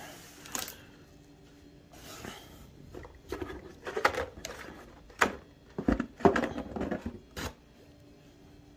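Cardboard shipping box and carded Hot Wheels cars in plastic blister packs being handled and shifted on a table: irregular rustles, scrapes and light knocks.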